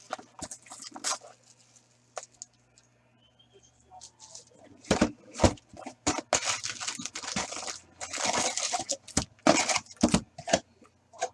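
Sealed trading-card box being opened: packaging tearing and crinkling, with sharp snaps of cardboard.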